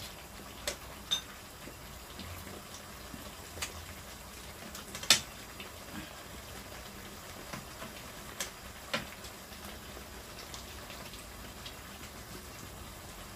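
Kitchen scissors and metal tongs clicking and clinking against a frying pan as pork ribs are cut up in broth, a scattering of sharp clicks with the loudest about five seconds in. Under them runs a steady low hiss of the broth simmering on a portable gas burner.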